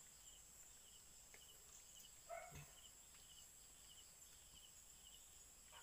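Near silence with faint field crickets chirping at a steady, even pace; a short faint sound a little over two seconds in.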